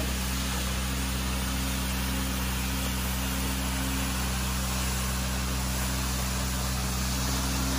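Carpet-cleaning extraction machine running steadily: a constant low motor drone under an even hiss of suction as the cleaning wand is worked over the carpet.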